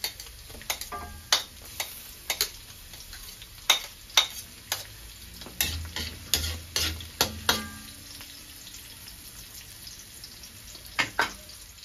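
Sliced onion and garlic sizzling in hot oil in a metal wok, with a spoon and spatula clacking and scraping against the pan and plate as the onion is tipped in and stirred. The clacks come thick for the first two-thirds, then thin out to a pair near the end.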